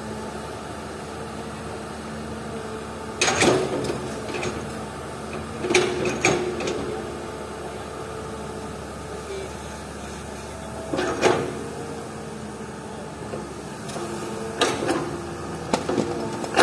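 Excavator working: its diesel engine and hydraulics run steadily, and about six sharp crashes break through as the bucket scoops and dumps rocky cadas fill into a steel dump truck bed.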